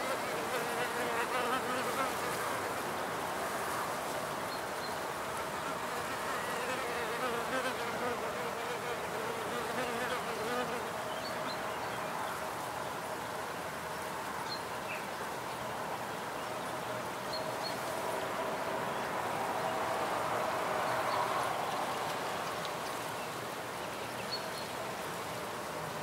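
A crowd of wild bees buzzing steadily at their nest, many wings humming together at slightly shifting pitches.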